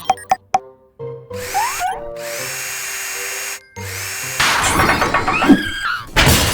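Cartoon power-tool sound effects, a drill-like whirring, over background music: a few short clicks, then a steady whirr with a quick rising whine, a brief break, and a louder, rougher whirr.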